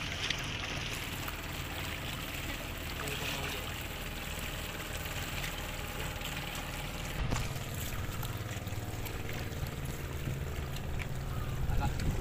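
Shallow seawater trickling and sloshing over a low, steady rumble.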